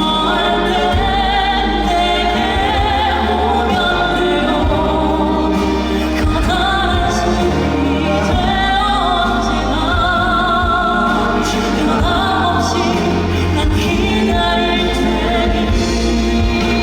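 Male crossover vocal group singing a slow ballad live, the voices held and swelling with wide vibrato over band and orchestral accompaniment.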